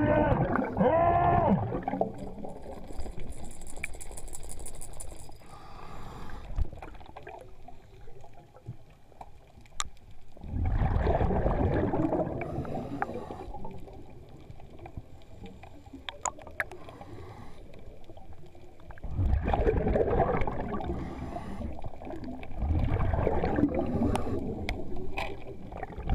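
Underwater, a scuba diver's exhaled breath bubbling out of the regulator in four bursts of gurgling, with quieter water noise between.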